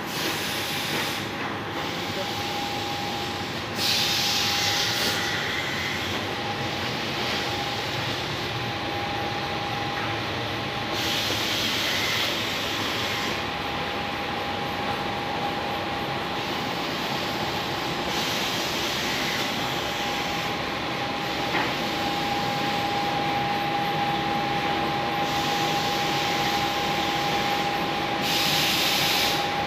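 Automatic paper-to-grey-board laminating machine running: a steady mechanical hum with a constant whine, broken by a few louder bursts of hiss.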